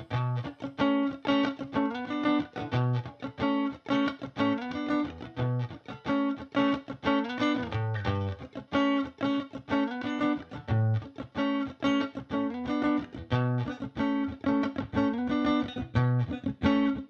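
Instrumental guitar band music: a repeating picked guitar figure over low bass notes that come every two to three seconds, with no singing.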